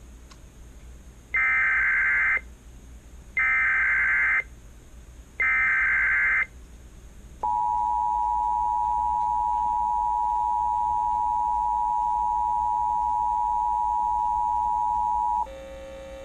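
Emergency Alert System tones from a Sage ENDEC: three one-second bursts of warbling SAME digital header data, then the steady two-tone EAS attention signal held for about eight seconds before cutting off.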